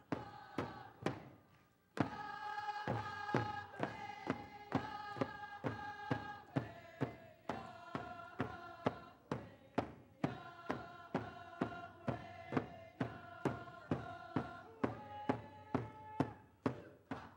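A group of Tlingit dancers singing an exit song in chorus over a steady drumbeat, a little over two beats a second. The voices break off briefly and come back in about two seconds in, while the drum keeps going.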